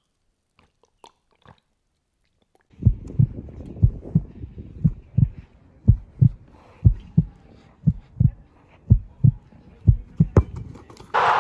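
Heartbeat sound effect: a slow, deep lub-dub thumping, one double beat about every second, starting nearly three seconds in after a few faint clicks. Near the end a loud rushing noise cuts in suddenly.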